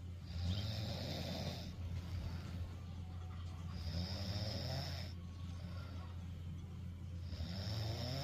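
A sleeping person snoring, three long rasping snores about every three and a half to four seconds, over a steady low hum.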